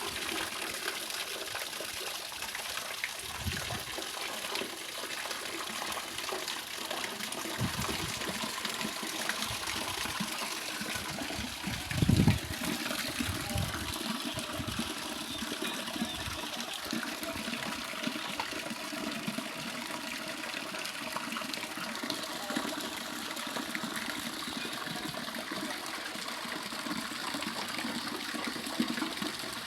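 Water running steadily from a shower hose in a pig pen, spraying the pigs, with a few low thumps; the loudest comes about twelve seconds in.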